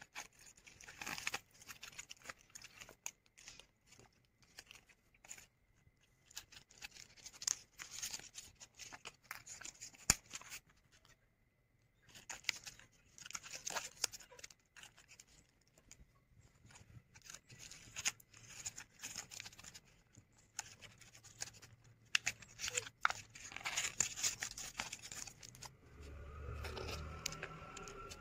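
Paper rustling and crinkling in irregular bursts with short pauses, as folded card flaps are opened and paper slips are handled and unfolded.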